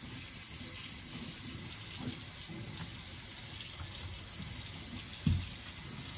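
Kitchen tap running steadily into the sink while zucchini are rubbed clean under the stream. There is a single thump about five seconds in.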